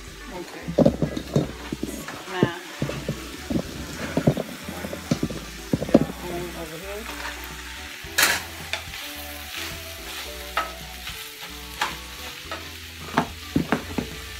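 Mushrooms, onions, sausage and bacon sizzling in a skillet, stirred with a wooden spoon that knocks and scrapes against the pan at irregular moments; the loudest knock comes about eight seconds in.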